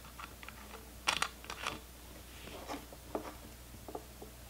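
Light metallic clicks and ticks as a chrome 90-degree water-cooling fitting is turned by hand onto a threaded port on the pump top: a quick cluster about a second in, then a few scattered taps.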